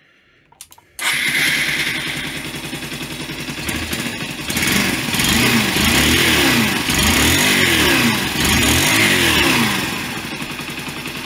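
1996 Yamaha SR125's single-cylinder four-stroke engine starting about a second in, idling, then revved up and down several times and settling back to idle. It is running on freshly added oil after being run oil-starved; it sounds as rough as it ever has, but the owner takes it that the bottom end survived.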